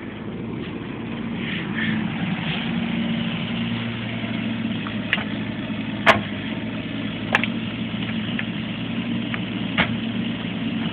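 Bobcat mini excavator's engine running steadily as it works, its low note getting fuller a few seconds in. Several sharp knocks come through the middle and near the end.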